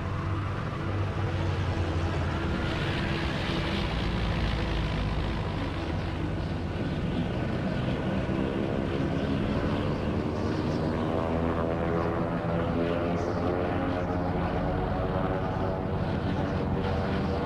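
An F4U Corsair's Pratt & Whitney R-2800 radial piston engine and propeller making a steady drone as the fighter flies a low pass over a runway.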